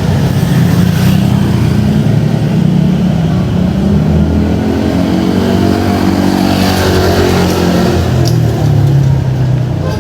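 Motor vehicle engine running loudly and revving, its pitch rising and then falling about four to seven seconds in.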